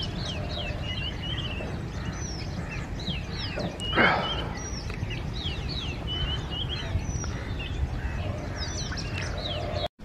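Oriental magpie-robin singing: a quick string of short, clear whistled notes, many sliding down in pitch, over a steady low rumble of background noise. A brief loud rush of noise about four seconds in.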